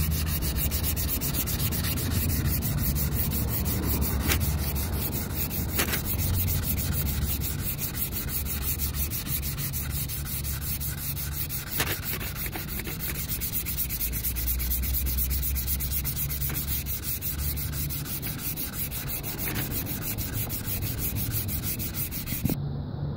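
Sandpaper on a hand sanding block rubbing back and forth over a car's bumper, steady and continuous, smoothing out scuffs and scratches before primer.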